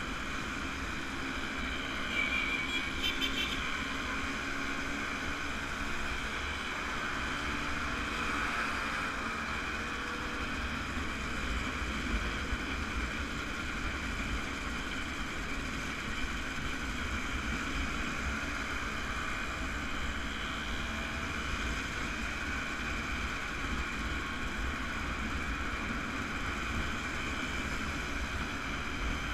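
Small vintage motorcycles running steadily at cruising speed in a group, heard from one of the bikes, with a continuous engine drone and low wind rumble.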